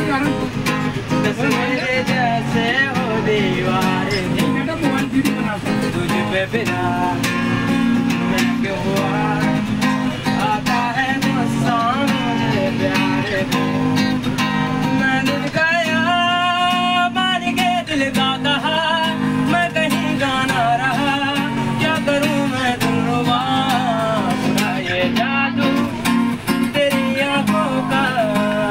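Acoustic guitar strummed steadily while a man sings along, holding one long note about halfway through.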